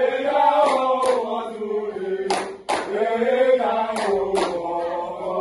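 A group of voices singing a chant together, accompanied by sharp hand claps at irregular intervals.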